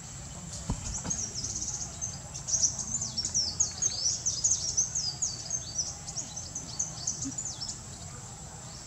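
A songbird singing a long, rapid run of high chirps and trills lasting several seconds, over steady outdoor background noise.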